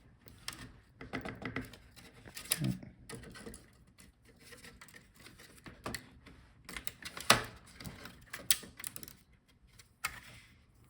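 Scattered light clicks and taps of small laptop parts and a screwdriver being handled as the audio port board is taken out, with one sharper tap about seven seconds in.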